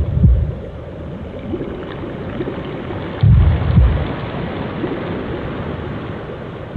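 Ambient background music: a deep boom about every three and a half seconds over a steady hissing wash.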